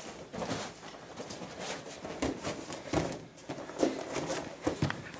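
Jujutsu practitioners grappling on training mats: irregular scuffs, slaps and dull thuds of feet and bodies, with cloth gis rustling. The loudest thuds fall about two, three, four and five seconds in.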